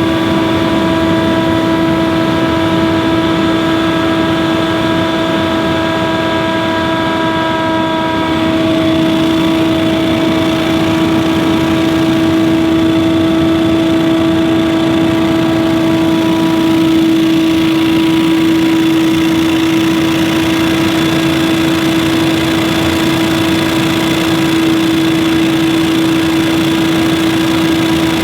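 Scag Windstorm stand-on leaf blower running steadily at high speed: a loud, even engine note with a strong steady hum and a rush of air.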